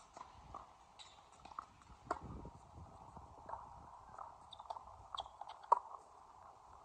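Tennis balls knocking: racket strikes and ball bounces on the court at irregular spacing, the sharpest knock a little before six seconds in.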